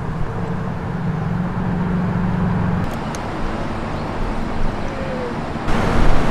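City road-traffic noise, a steady low rumble. A steady hum sits over it for the first few seconds, and the sound grows louder near the end.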